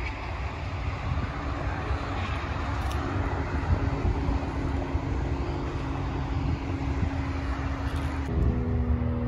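Wind rumbling on the microphone over a vehicle engine's steady drone; the drone's pitch shifts and thickens about eight seconds in.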